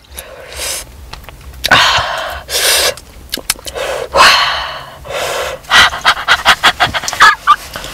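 A woman panting and blowing out hard through an open mouth, with several long breaths and then a run of quick short breaths near the end. She is reacting to the burn of extra-hot spicy grilled chicken wings.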